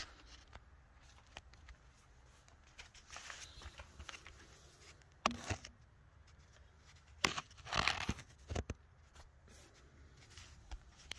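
Scattered handling noises: a few sharp knocks and clicks, the loudest about five seconds in and a cluster between seven and nine seconds in, with light rustling between them.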